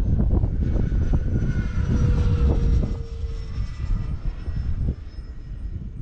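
Twin electric ducted fans of a Freewing A-10 radio-controlled jet whining as it flies past, the pitch falling a little and the sound dropping away about halfway through, with wind buffeting the microphone.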